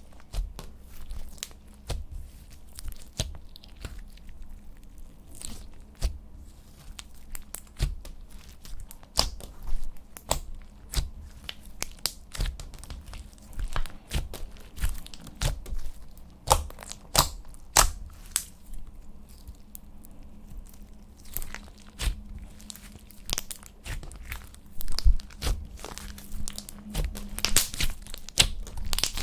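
Slime being mixed and kneaded by hand: wet, sticky squishing with irregular sharp pops and clicks as it is pulled apart and pressed together.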